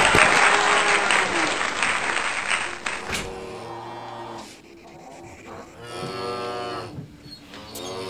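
Cow mooing, a few long drawn-out moos in the second half, after applause that fades out over the first three seconds.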